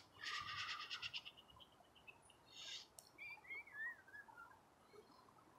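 Faint bird calls: a fast trill that fades out in the first second, then, about three seconds in, a short run of thin chirps falling in pitch.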